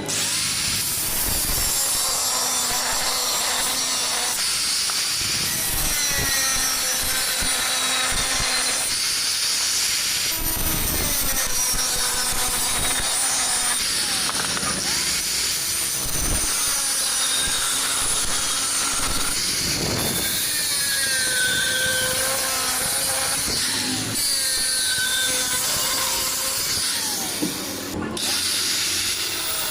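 Angle grinder cutting steel tube, a loud steady grinding with a whine that wavers in pitch as the disc is loaded, broken by a few abrupt changes.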